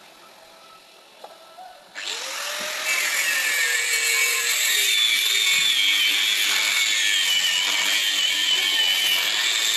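Handheld electric angle grinder switched on about two seconds in, its pitch rising as the motor spins up. It then grinds into a piece of metal with a loud, steady, high-pitched grinding noise.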